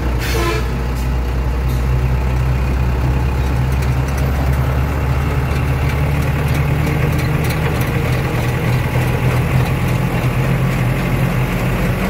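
Truck engine running with a steady low drone, heard from inside the cab while driving.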